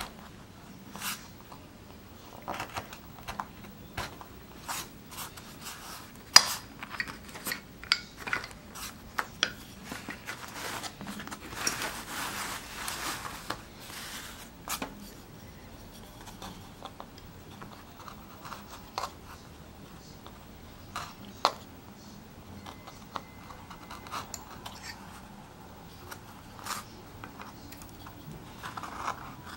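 Hand gouge cutting into a plywood woodcut block: irregular short scraping strokes and small clicks as wood chips are lifted, with a longer run of scraping a little before halfway.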